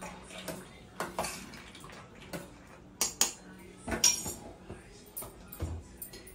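Stainless steel pot and utensils clinking and knocking on a gas stove top as a pot of soya chunks is set on to boil. A scatter of sharp metal clinks, the loudest about three and four seconds in.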